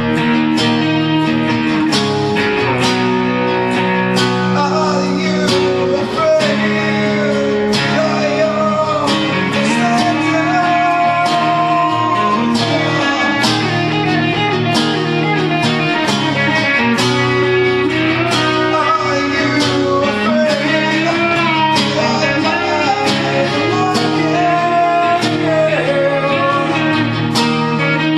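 Guitars playing a song live, with strummed chords and a melody line wavering above them.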